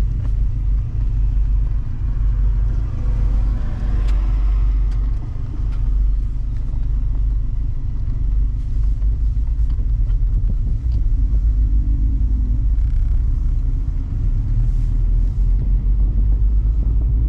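Mazda MX-5 ND's four-cylinder engine running, with a steady low rumble of the car in motion heard from inside the cabin, the pitch rising and falling a little as the engine revs change.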